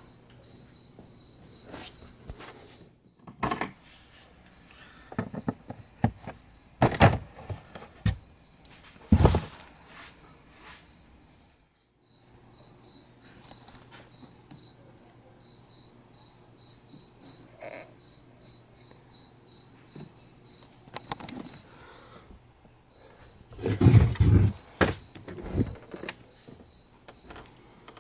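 A cricket chirping steadily, about two high chirps a second, over scattered loud knocks and clunks, the loudest about a third of the way in and again near the end.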